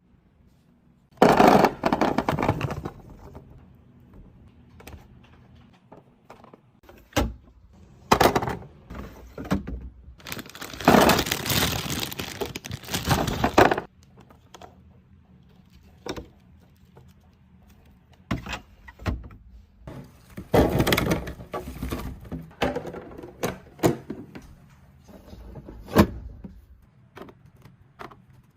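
Containers and food items being handled and set down: sharp knocks and clicks of plastic and glass, with three longer rustling or pouring stretches.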